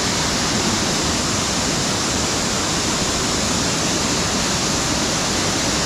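Waterfall pouring down into a splash pool: a loud, steady rush of falling water.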